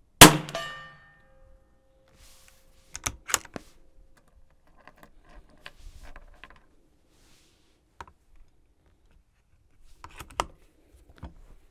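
A single shot from a CZ 457 Varmint MTR bolt-action .22 LR rifle firing CCI Standard Velocity, the loudest sound, with a short ringing tail. It is followed by the bolt being worked: sharp clicks about three seconds in, softer handling of the next cartridge, and more clicks as the bolt is closed near the end.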